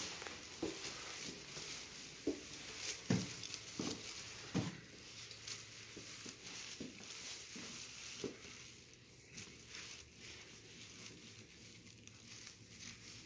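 Footsteps of a person walking along a hard-floored corridor: irregular soft thumps, plainest in the first five seconds and fainter after, over a steady hiss.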